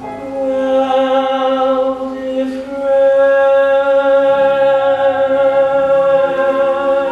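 A singing voice holds a long final note over the show's accompaniment, changing pitch and swelling louder about three seconds in: the closing held note of a musical-theatre song.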